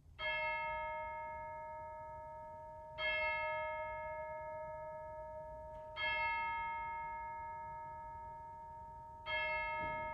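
A bell struck four times at the same pitch, about three seconds apart, each stroke ringing on and slowly fading before the next.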